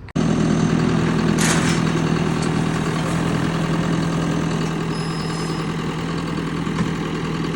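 A vehicle engine running steadily at idle, a constant even hum, with a brief rattle about a second and a half in.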